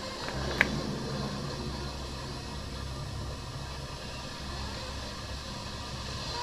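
Steady hiss with a low hum, and one sharp click about half a second in.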